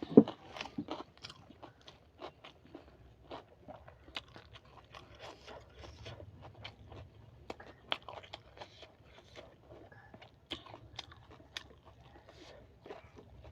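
Close-miked eating: chewing with many short crunches and clicks from biting, and a sharp knock, the loudest sound, just after the start.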